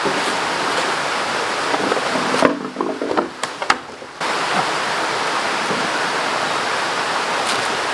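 River water rushing steadily, cut off for a second and a half about two and a half seconds in, when a few sharp knocks are heard, before the rushing returns.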